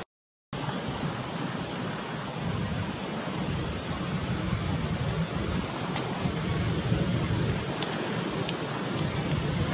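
Steady rushing outdoor background noise with no clear source, cutting in about half a second in after a moment of silence; a few faint clicks come near the middle.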